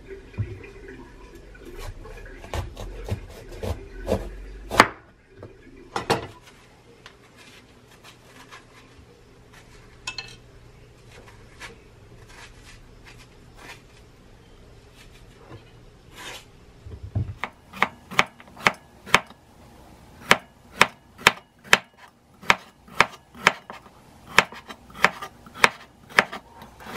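Chinese cleaver cutting bitter melon on a wooden chopping board: a few scattered knocks at first, a quieter stretch of faint scraping while the seeds are scooped out, then steady rhythmic chops on the board, about two a second, for the last third.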